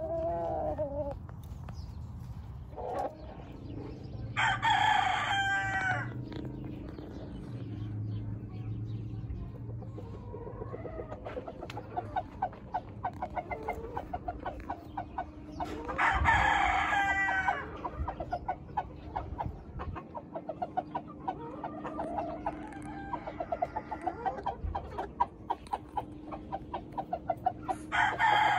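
Game roosters crowing: three loud crows about twelve seconds apart, each lasting a second or two, with quieter clucking in between.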